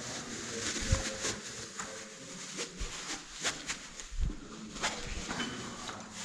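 Irregular clicks and knocks of rope gear and movement on rock during a rappel, over a steady hiss.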